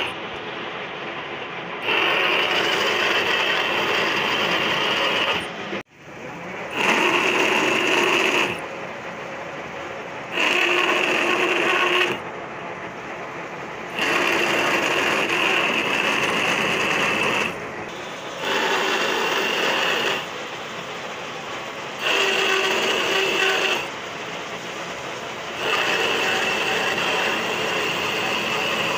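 Metal lathe screw-cutting a coarse thread into a metal shaft. Loud cutting passes with a steady high ringing tone alternate with quieter stretches of the lathe running between passes, about seven passes in all.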